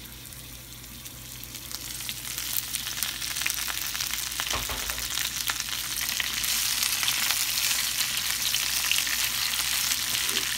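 Fresh spinach sizzling in hot oil in a frying pan. The sizzle grows louder over the first couple of seconds and again about six seconds in, with a single knock near the middle.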